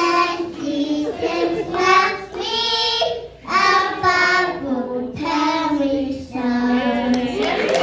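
Children singing together, a small boy's voice into a microphone among them, in held phrases with short breaks between lines.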